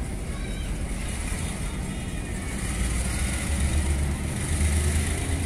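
Goods train of covered freight wagons rolling slowly past at close range, a low rumble that grows louder as the wagons go by.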